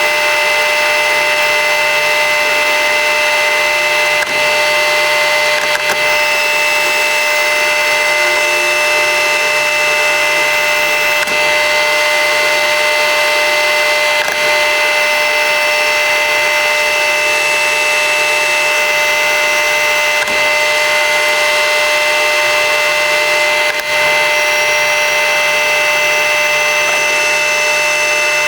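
Colchester 15x48 metal lathe running steadily with a constant whine from its gearing, turning a small part.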